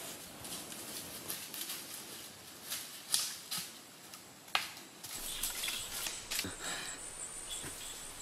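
Forest sounds: irregular rustling of leaves and undergrowth, with a single sharp click about four and a half seconds in. A thin high steady tone joins in after about five seconds.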